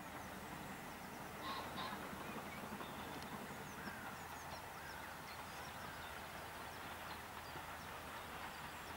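Faint outdoor birdsong: small birds chirping over a steady low hiss, with two short louder bird calls close together about one and a half seconds in.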